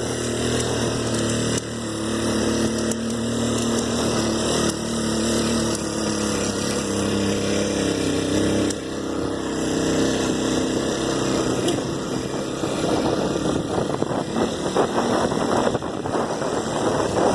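Single-cylinder engine of a Honda Tornado 250 motorcycle running steadily while riding with a passenger, the engine note dropping about nine seconds in. A rougher, gusty noise, like wind on the microphone, grows in the second half.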